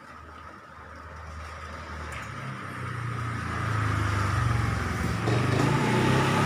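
Motorcycle engine running as it approaches along the street, growing steadily louder.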